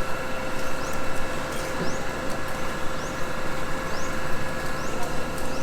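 Heavy truck engine running steadily, a low rumble with a steady high whine over it.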